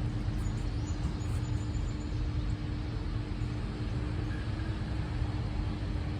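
Steady outdoor background rumble, heaviest in the low end, with a faint constant hum over it.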